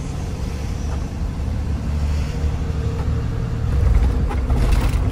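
Box truck running down a city street, heard from the cab: a steady low rumble of engine and road noise that grows louder about four seconds in.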